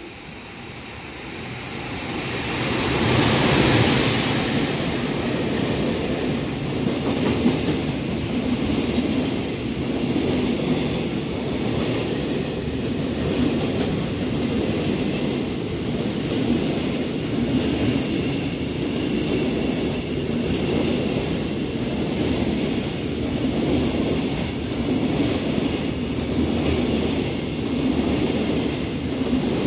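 ED76 electric locomotive hauling a freight train through without stopping: its noise rises to a loud peak about three to four seconds in as the locomotive goes by, followed by the steady rumble and clatter of container wagon wheels rolling past.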